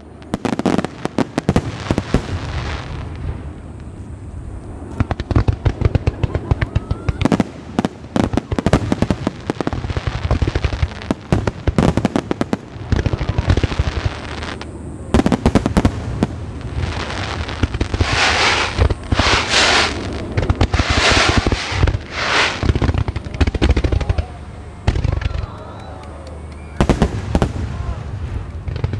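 A fireworks display: a rapid, irregular series of shell bursts and bangs. About two-thirds of the way through come several loud, dense stretches where the bursts run together.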